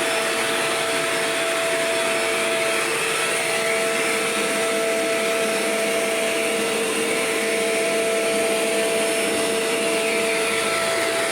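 Shark Rotator upright vacuum cleaner running steadily just after being switched on: an even motor whine with two steady tones over a rush of air.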